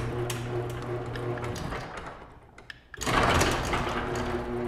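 Garage door opener motor running as it drives the door, a steady hum with mechanical rattle. It stops about two seconds in and starts again a second later.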